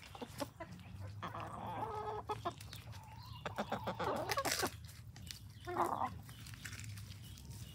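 Hens clucking softly as they feed, with a run of short sharp clicks around four seconds in and a louder cluck near six seconds.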